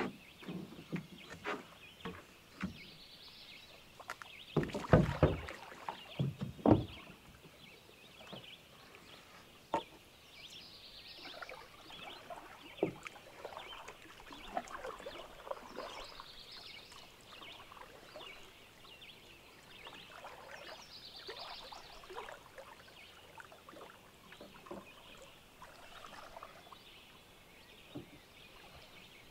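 Wooden canoe being boarded and pushed off from a rocky shore: loud knocks and thumps of paddles and gear against the hull in the first several seconds. Then softer, irregular paddle strokes dipping and splashing in calm water, growing fainter as the canoe moves away.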